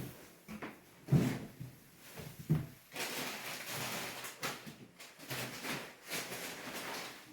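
Two dull knocks about a second and a half apart, then several seconds of rustling and scuffing as things are handled.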